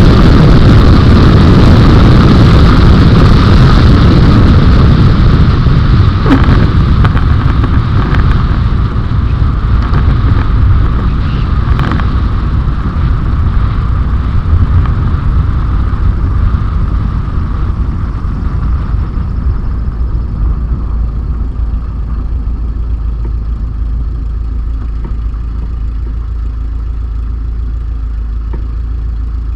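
Bushcaddy light aircraft's piston engine and propeller heard from inside the cabin, running loud at first and then gradually quieter as power comes off, settling into a lower, steady run over the last ten seconds or so.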